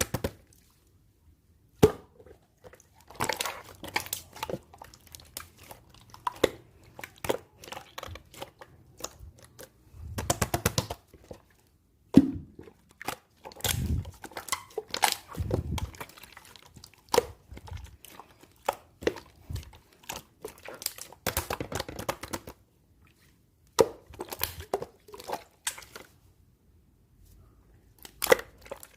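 Clear, colourless slime being squished, poked and stretched by hand, giving sticky crackling and popping clicks in irregular bursts with short pauses between them.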